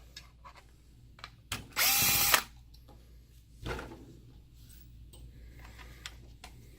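A power drill-driver runs once for under a second, about two seconds in, backing out a screw from the plastic housing. Its motor whine rises and then holds steady before stopping. A light knock and a few small clicks follow.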